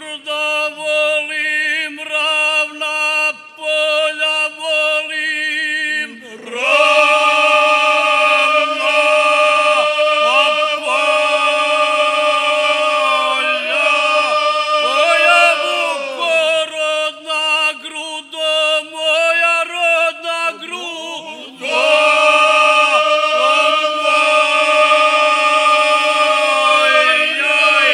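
Men's folk singing group singing a traditional homeland song unaccompanied, in long held notes. The sound grows louder and fuller about six seconds in, thins for a stretch in the middle, and swells again near twenty-two seconds.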